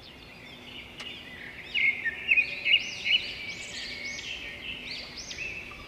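Birds chirping: many quick, short calls overlapping, loudest about two to three seconds in.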